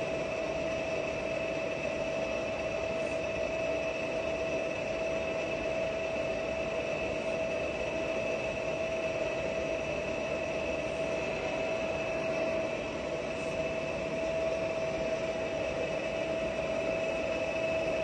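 Giana heavy-duty lathe running with its carriage traversing along the bed on longitudinal power feed: a steady mechanical drone with two constant whining tones.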